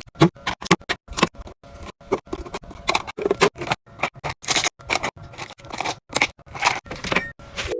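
Rapid run of sharp clicks, taps and scrapes, several a second, from containers and packaged items being handled and set down; a few ring briefly like hard plastic or glass.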